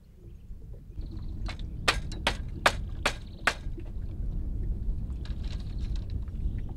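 A small hand blade or hatchet striking bamboo: six sharp, evenly spaced chops, a little over two a second, over a low steady rumble.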